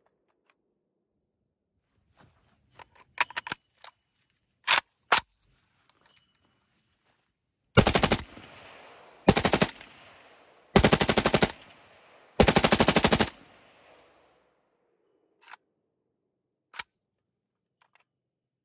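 AK-pattern assault rifle firing on full auto: four bursts, the first very short and the others about half a second to a second long, each trailing off in an echo. A few seconds before the firing, several sharp metallic clacks of the rifle being handled.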